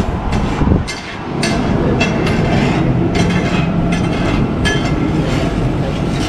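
Metal spatula knocking and scraping on a large flat griddle (tawa) as pav bhaji is mashed and spread, about two sharp clinking strokes a second with a brief metallic ring. Underneath is a low, steady rumble of street traffic.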